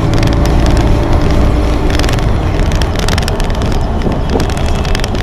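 City bus in motion, heard from inside: a steady low engine and road rumble with a faint steady hum, and frequent short clicks and rattles.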